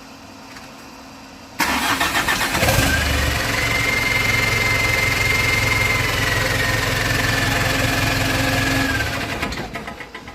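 Mitsubishi Fuso Canter Euro 4 four-cylinder diesel engine cranked on the starter about a second and a half in. It catches about a second later and runs steadily with a high steady whine, now starting and running normally after all four injectors had failed. Near the end the engine shuts down and runs to a stop.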